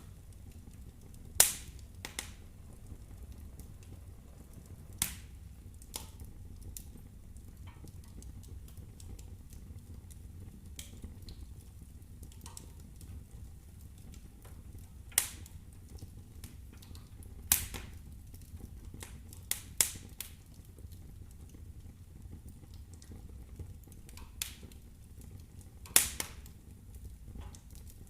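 Wood fire burning in a fireplace, with sharp crackling pops from the burning logs every few seconds over a low steady rumble. The loudest pop comes about a second in, and there is a quick pair of pops near the middle.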